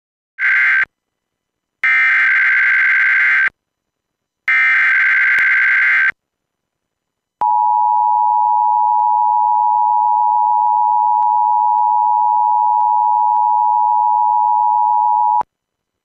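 Emergency Alert System alert tones: three short bursts of buzzing SAME digital header data, then the two-tone attention signal held steady for about eight seconds. Together these announce the start of a National Weather Service severe thunderstorm watch.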